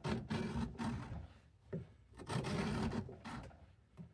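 Knife blade of a Cattaraugus 225 Quartermaster scraped along a sharpening stone in firm strokes, two long strokes of about a second each with a short one between, working the rounded tip back to a point.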